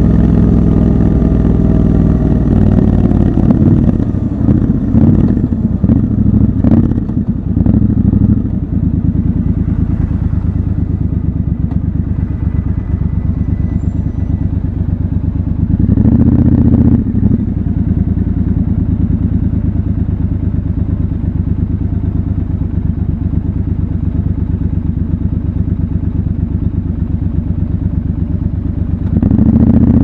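Triumph Scrambler 1200 XC's parallel-twin engine slowing down from speed, its pitch falling over the first few seconds, with a few knocks as it comes down. It then idles steadily while stopped, with two short throttle blips, one about halfway through and one near the end.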